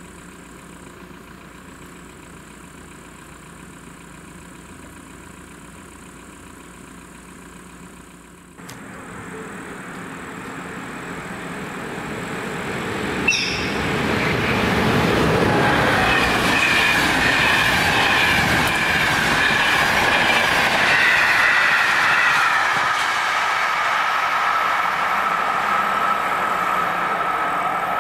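Train passing over a level crossing, wheels clattering on the rails. It starts fairly quiet and becomes loud from about a third of the way in, with a sharp clank partway through and a steady high squeal over the loudest part. Before the train builds up there is a quieter steady hum.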